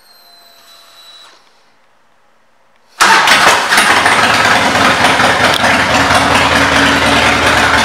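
A faint whine for about a second as the ignition is switched on. About three seconds in, the 2003 Harley-Davidson Softail Deuce's V-twin fires up abruptly and runs loudly and steadily through its Vance & Hines pipes.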